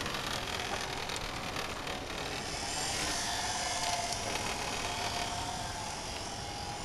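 Invacare Pronto SureStep M51 power wheelchair driving on asphalt, its electric drive motors giving a faint wavering whine that shows most after a couple of seconds, over a steady noise.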